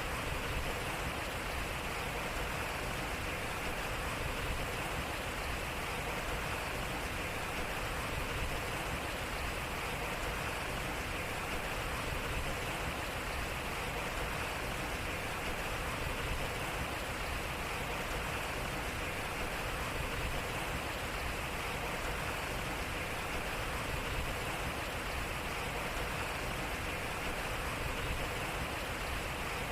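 Water flowing and splashing at a turning water wheel: a steady, even rush of water.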